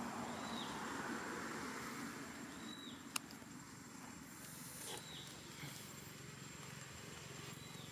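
Dry leaf litter rustling under a foraging macaque, loudest in the first couple of seconds. A short high falling call repeats about every two and a half seconds, and a single sharp click sounds about three seconds in.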